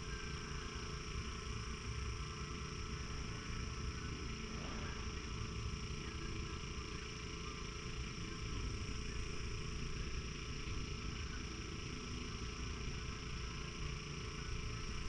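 Steady outdoor night background: a constant low rumble with a faint high hum over it, unchanging, with no distinct event.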